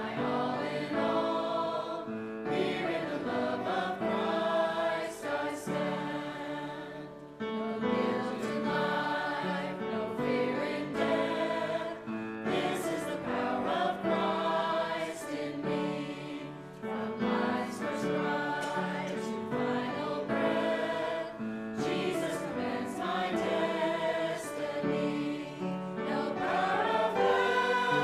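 A small mixed church choir singing a hymn together, several voices in harmony.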